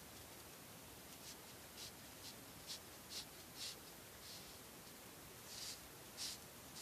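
Faint hiss with about nine brief, soft scratchy rustles of cord being pulled and tucked through a knot by hand, the loudest two near the end.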